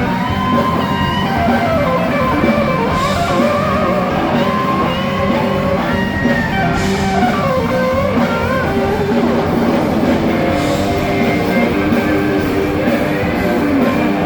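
Live rock band playing loudly through a festival PA during a soundcheck: electric guitar lines that bend and slide over bass and drums. There is a cymbal crash about every four seconds.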